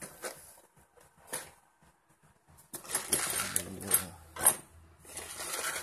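Metal parts and tools on a mini lathe clinking and rattling as they are handled. A few light clicks come first, then a burst of denser clatter with sharp knocks partway through.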